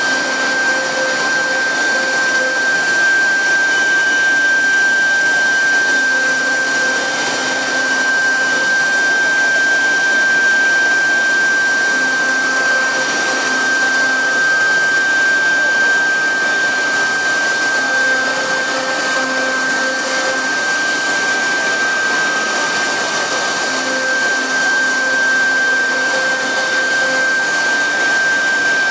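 Double-head CNC router with two 3.5 kW air-cooled spindles cutting a wooden board: a steady high spindle whine over a hiss of cutting, with a lower hum that comes and goes every few seconds as the heads move.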